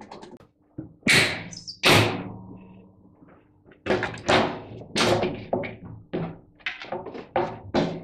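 Washing machine top lid being knocked back and lifted off the metal cabinet: two loud thuds with a ringing tail about a second apart, then a run of lighter knocks and clatters as the lid slides and comes away.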